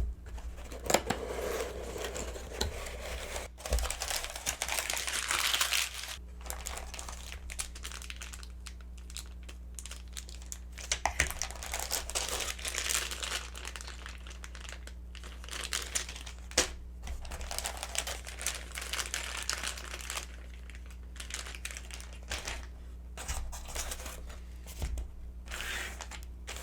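Packaging being handled and opened by hand: irregular crinkling and rustling of wrapping, with some tearing and a few sharp knocks. A steady low hum sits underneath.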